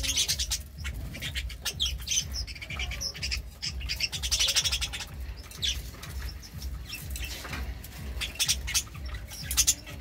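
Budgerigars chattering and squawking in rapid, scratchy high-pitched runs, loudest about four to five seconds in and again near the end.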